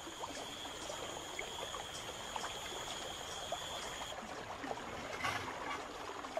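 Steady rush of a swollen, flooded river running fast past the bank, with a thin, steady high-pitched tone over it that cuts off about four seconds in.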